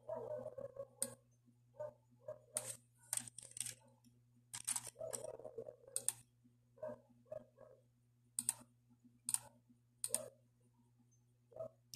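Irregular faint clicks and rustles, about a dozen unevenly spaced, over a steady low electrical hum.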